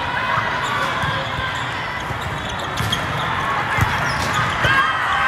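Volleyball tournament hall ambience: balls thumping and bouncing on the many surrounding courts, over a steady hubbub of voices, in a large hall.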